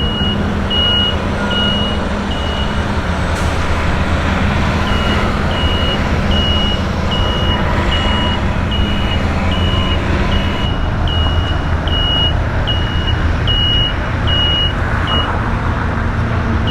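Construction vehicle's back-up alarm beeping at a steady pace, falling silent for a couple of seconds early on, then resuming until near the end, over the steady low rumble of heavy engines and traffic.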